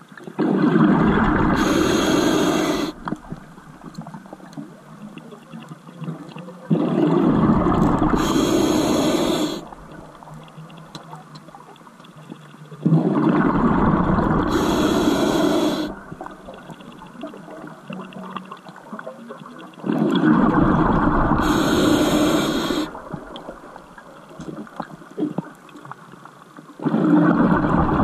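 Scuba diver breathing on an open-circuit regulator: each exhalation is a loud rush of bubbles lasting two to three seconds, coming about every six to seven seconds, with quieter stretches in between.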